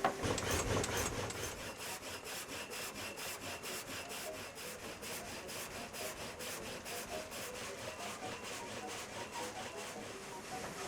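Water-powered sawmill blade cutting through wood in a steady, even rhythm of rasping strokes.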